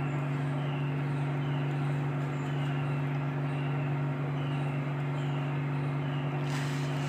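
A steady low hum runs on unchanged, with a faint high chirp repeating about every three quarters of a second. A brief hiss comes near the end.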